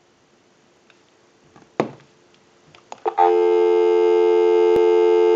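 Telephone dial tone from the handset of a Western Electric 2554 wall telephone on a live line, heard through a pickup amplifier: faint at first, then loud and steady from about three seconds in. A single knock comes a little before two seconds in.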